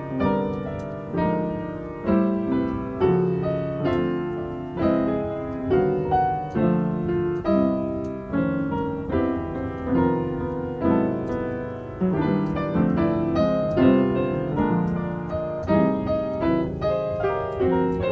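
Piano playing an improvised piece: chords struck roughly once a second, each ringing and fading before the next.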